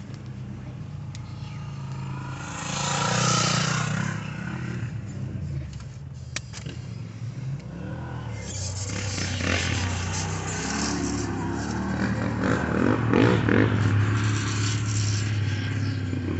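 A pickup truck's engine running low and steady while a dirt bike goes by, its engine revving and rising and falling in pitch in the second half; a loud rush of noise comes about three seconds in.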